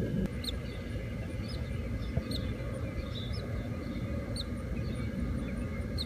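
Faint, short, high peeps from newly hatched songbird nestlings in the nest, about half a dozen scattered through, over a steady low rumble.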